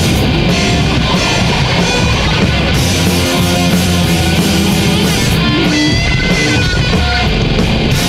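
Loud rock music with guitar, dense and steady, with no singing.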